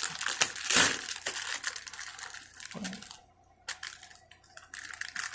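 Plastic packaging crinkling and rustling as a boxed figure is unwrapped, loudest about a second in, then dying down to a few light clicks and taps.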